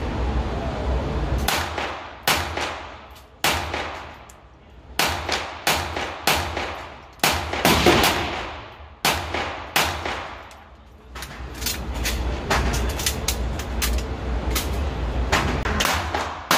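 Semi-automatic pistol firing a long, irregular string of shots, some in quick pairs, each shot ringing off the concrete walls of an indoor range.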